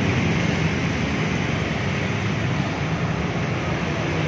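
Toyota Kijang engine running steadily through a newly fitted 4-3-1 racing header exhaust, a loud even drone with a deep rumble.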